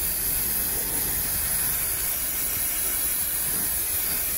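Aerosol freeze spray hissing in one steady blast onto a bitumen sound-deadening mat, freezing the tar so it can be knocked loose.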